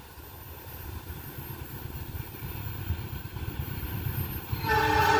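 Argo Wilis express train approaching at speed: a low rumble that grows louder, then about a second before the end the locomotive's horn starts, a steady multi-tone chord.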